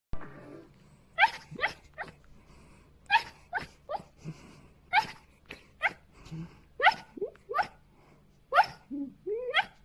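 A dog yipping and whimpering in its sleep: short, high calls that drop sharply in pitch, coming in quick runs of two or three, with one rising whine near the end.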